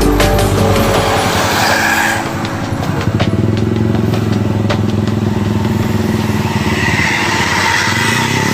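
Heavy vehicle engines in street traffic running with a steady low drone, as bus traffic passes. A melodic music passage breaks off in the first second or so.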